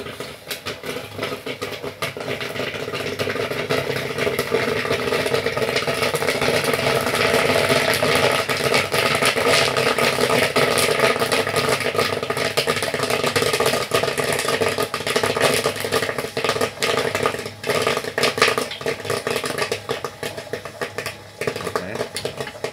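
Corn popping in a gas-heated popcorn machine kettle. The popping builds over the first few seconds into a dense, continuous crackle, over the steady hum of the battery-powered stirring motor. The batch is at full pop, with popped kernels spilling out of the kettle.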